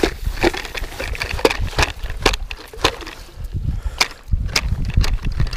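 Hand ice auger cranked through lake ice: its steel blades bite and scrape in a string of irregular crunching strokes, with a low rumble rising about four seconds in.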